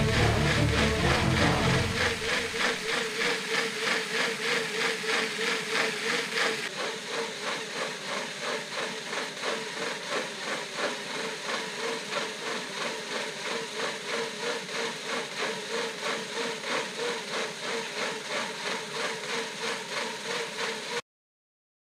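Bicycle wheel spinning on roller trainer drums: a steady whirring hum that pulses rhythmically and cuts off suddenly about a second before the end. Bass-heavy music fades out in the first two seconds.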